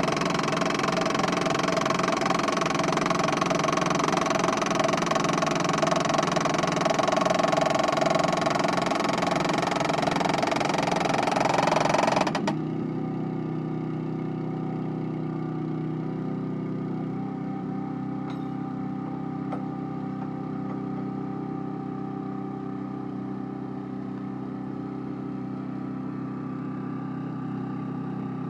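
Truck-mounted hydraulic soil corer and its engine-driven hydraulic power pack working loudly under load as the core tube is driven into the soil. About twelve seconds in, the working noise cuts off sharply and the engine settles to a steady idle.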